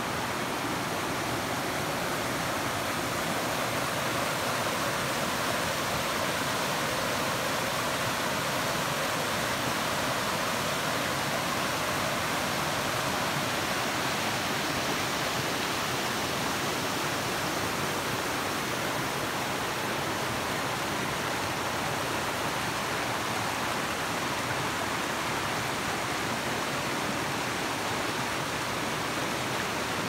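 Waterfall and river water rushing steadily, an even unbroken hiss.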